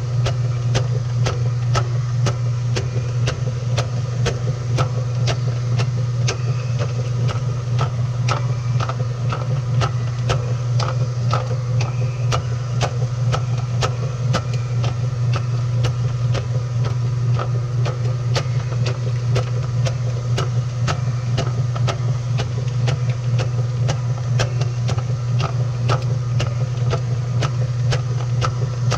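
Washing machine running, heard from a GoPro inside the drum: a steady low hum with frequent irregular clicks and knocks.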